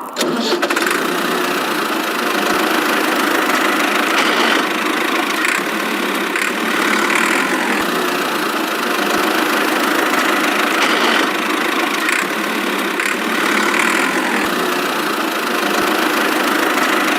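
A motor running steadily; the sound cuts in abruptly.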